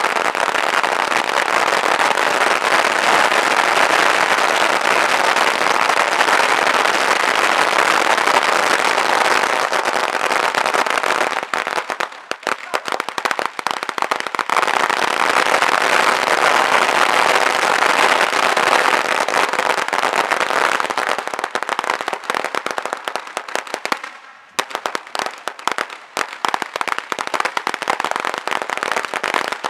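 A 16,000-count firecracker string going off in a fast, unbroken crackle of pops, thinning into separate bangs about twelve seconds in before picking up again. After about twenty seconds it breaks up into scattered pops, stops briefly, then ends with a few last bangs as the string burns out.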